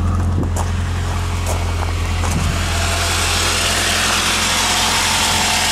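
1995 Saturn S-series four-cylinder engine idling steadily, with a rushing noise growing louder about halfway through. Its alternator has a worn, loose-shafted bearing that whines, faint here under the engine sound.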